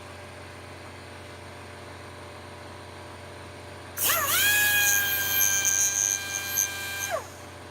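A small handheld electric power tool is switched on about four seconds in: its motor spins up to a steady high whine, runs for about three seconds, then is switched off and winds down in pitch.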